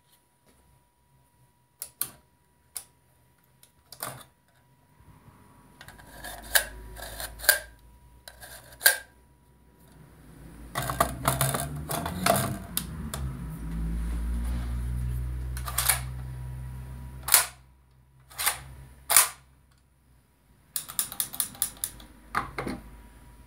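Sharp metal clicks and clacks from a handmade steel replica FAL rifle being handled, its magazine worked at the magwell. In the middle there is a longer stretch of rubbing and handling noise with a low rumble, and near the end a quick run of clicks.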